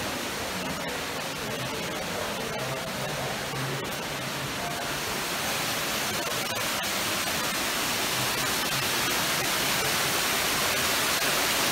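A steady rushing noise, slowly growing louder.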